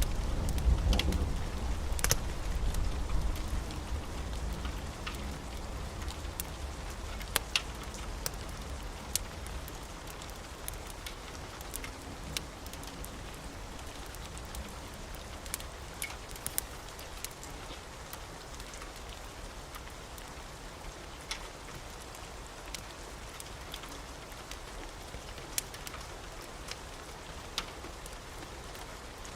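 Steady rain, with scattered sharp ticks and clicks throughout. A low thunder rumble dies away over the first few seconds.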